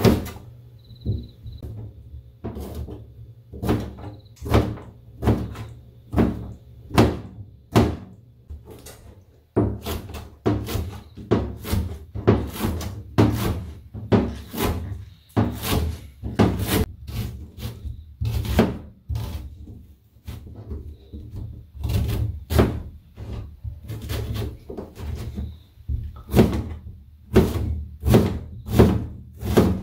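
Kitchen knife chopping vegetables on a plastic cutting board: a steady run of sharp knocks as the blade strikes the board, about one to two a second, cutting through potato, green onions and onion.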